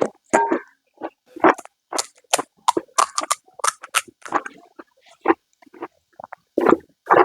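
Close-miked eating of panipuri: crisp shells crunching and wet chewing and slurping in quick, irregular bursts, several a second.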